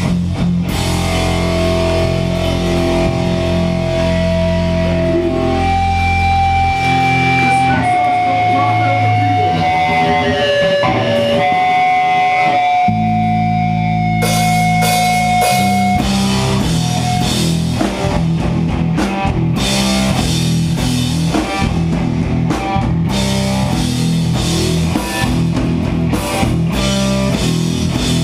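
Hardcore band playing live: heavy guitars, bass and drum kit. Held low chords give way after about seven seconds to a sparse stretch of single sustained guitar notes, then the full band crashes back in with heavy chords and fast chugging riffs over the drums.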